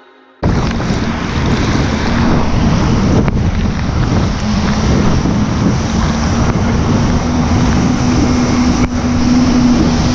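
Jet ski running fast across the water, its engine a steady hum under heavy wind noise on the microphone and rushing spray; it starts abruptly about half a second in, and the engine hum grows stronger and edges slightly higher partway through.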